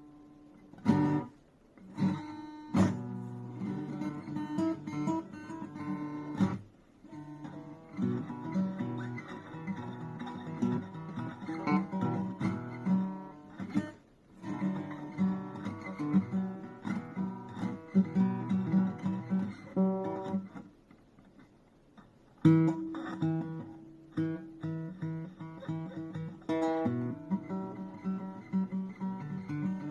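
Plucked string instrument being played, mixing strummed chords and picked notes, broken by short pauses; the longest pause, about two seconds, comes about two-thirds of the way through.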